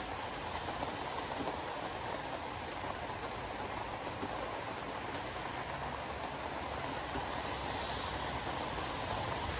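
Steady road noise of a car driving on a wet road in the rain, heard from inside the cabin: tyre and engine noise mixed with rain on the windshield.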